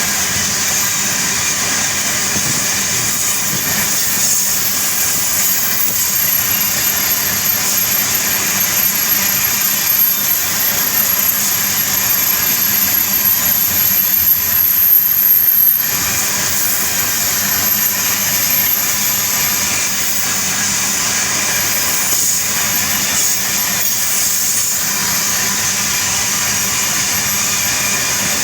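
Heavy iron ore train rolling past, a loud steady rush of steel wheels on rail with a thin high squeal that swells and then stops suddenly about halfway through.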